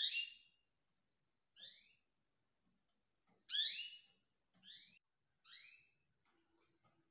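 Canary nestlings begging for food: five short, high, rising peeps at irregular intervals, the loudest at the very start and about three and a half seconds in.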